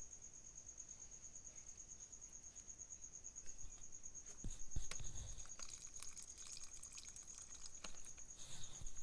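A spoon stirring thin, watery haleem in a pot: scrapes and clicks and the liquid sloshing, from about halfway through, with a low thud-like slosh the loudest about five seconds in. A steady high-pitched pulsing trill runs underneath throughout.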